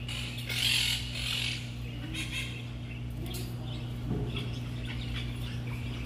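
A parrot's harsh squawk about half a second in, lasting about a second, followed by a few fainter short chirps, over a steady low hum.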